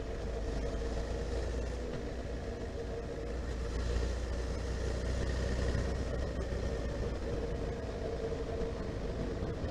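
Honda CB1300SF's inline-four engine running steadily while the bike cruises along.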